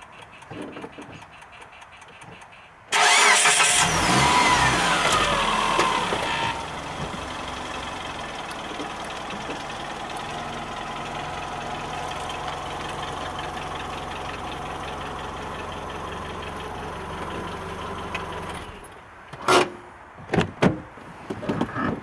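A car engine starting about three seconds in, flaring loud with a falling whine as the revs drop, then settling into a steady idle. The engine cuts off a few seconds before the end, followed by a few sharp knocks.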